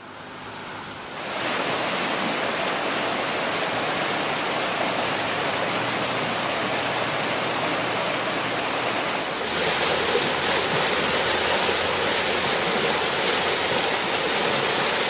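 Floodwater rushing in a steady, even roar. About two-thirds of the way through it grows louder and brighter as water gushes out of a culvert.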